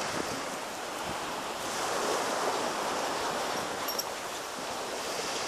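Sea surf breaking and washing up a sandy beach: a steady rush of waves that swells slightly a couple of seconds in.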